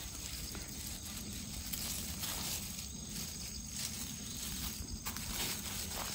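Soft rustling and light scraping in dry grass and fallen leaves as chestnuts are picked up off the ground and dropped into a plastic bag, with a few faint clicks.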